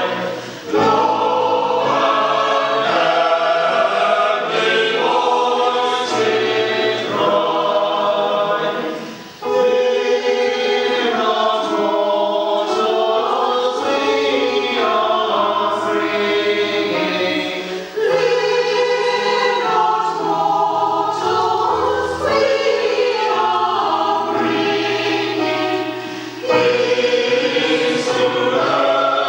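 Mixed community choir singing a Cornish chorus carol in several voice parts, in long phrases broken by brief pauses for breath about every nine seconds.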